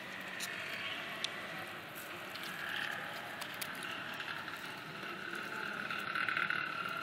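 Puppies whimpering softly in drawn-out high-pitched whines, strongest about six seconds in, with scattered clicks and rustles of paws in dry leaves and gravel.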